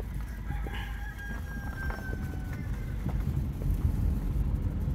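A rooster crowing once: one long held call of about two seconds that sags at its end. Under it runs the steady low rumble of the car.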